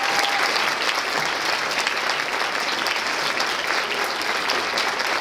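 An audience applauding, many people clapping steadily without a break.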